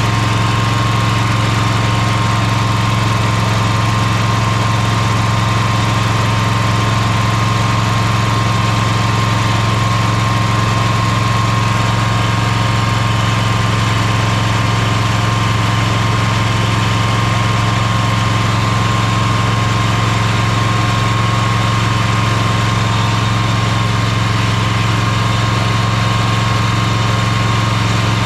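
Lawnmower engine running steadily at one even speed, just brought to life with a jump starter after it wouldn't start.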